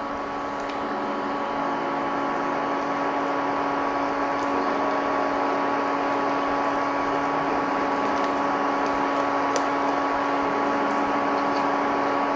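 A steady appliance hum with several fixed pitches, growing a little louder over the first two seconds, under the light swishing of a silicone whisk stirring a cream sauce in an enamelled cast-iron pot.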